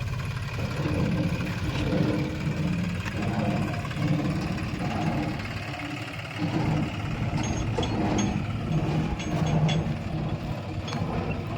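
Backhoe loader's diesel engine running and working, its pitch and loudness rising and falling every second or two. A few light sharp clicks come in the second half.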